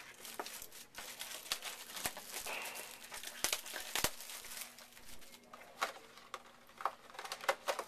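Foil trading-card pack wrappers of 2014 Panini Elite Football crinkling and tearing as the packs are ripped open and the cards handled: a continuous run of crinkling with sharp snaps scattered through it.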